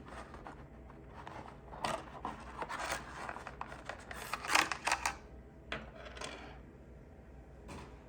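Product packaging being handled and opened by hand: irregular rustling and scraping with several sharp clicks, busiest in the middle.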